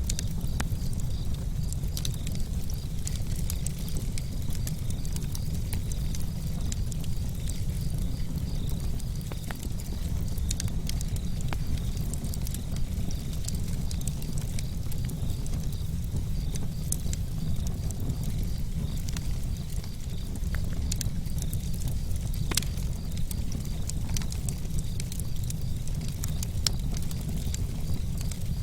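Wood campfire burning with irregular crackles and snaps over a steady low rumble, and one sharper pop about three-quarters of the way through.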